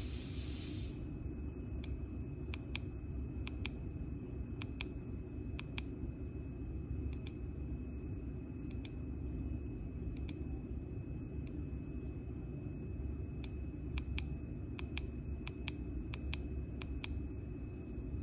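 Geiger counter clicking irregularly, a sharp tick every second or so, some in quick pairs, as it picks up a low dose rate; a faint steady high whine runs under the clicks. A hiss cuts off about a second in.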